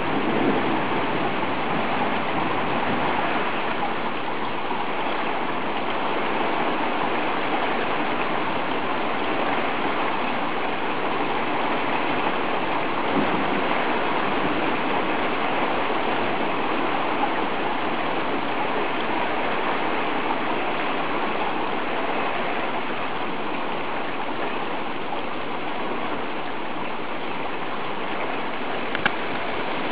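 Heavy rain pouring down steadily on a street, an even hiss of rain with no letup.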